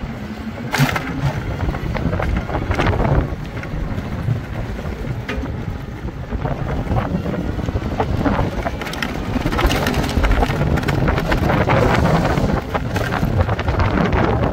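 Wind buffeting the microphone and rolling noise of a 1-tonne electric cargo tricycle pulling away and gathering speed, with scattered knocks and no engine note; it grows louder after about eight seconds.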